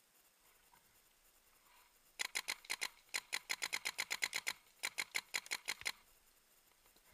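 Paintball marker firing three rapid strings of shots, about ten a second, with short pauses between strings.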